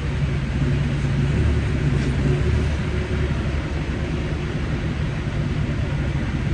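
Semi-truck's diesel engine running steadily, a low even hum heard from inside the cab.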